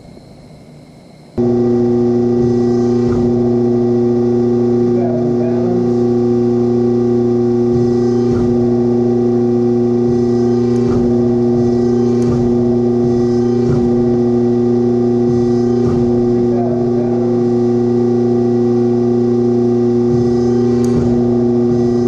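The pull-test rig's motor starts about a second in and runs with a loud, steady hum while the harness bridge is loaded, with a few faint ticks over it.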